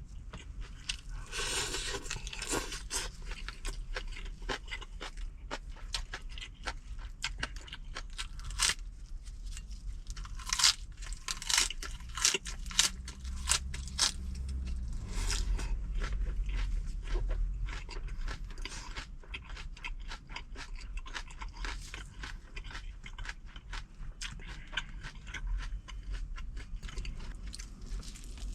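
A person chewing and crunching food close to the microphone, with many sharp crunches coming irregularly, over a low steady rumble.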